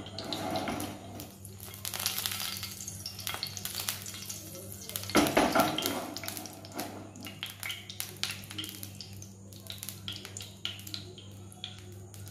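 Cooking oil heating in a frying pan, sizzling lightly, with a utensil clinking and scraping against the pan. A louder clatter comes about five seconds in.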